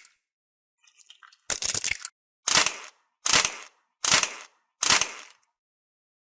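Slime being pressed and crunched: five short, crackly crunching bursts a little under a second apart, each fading quickly, after a faint crackle.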